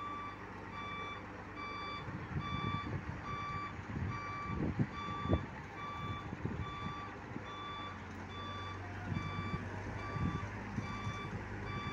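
An electronic vehicle warning beeper sounding a steady train of short beeps, a little under two a second, over a heavy diesel engine running, with irregular low rumbles in places.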